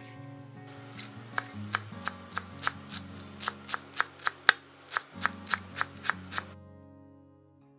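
Chef's knife chopping fresh cilantro on a wooden cutting board: a quick, even run of about twenty chops, three or four a second, which stops about six and a half seconds in.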